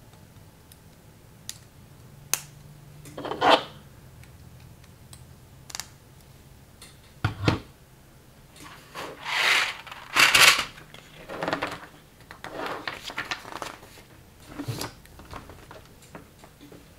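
Plastic construction bricks from a knockoff LEGO spaceship set being handled and snapped together: a few single sharp clicks, then several longer bursts of plastic clattering around the middle.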